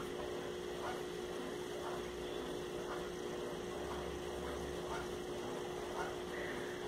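Steady hum with faint soft rustles about once a second as cotton twine is pulled through with a crochet hook.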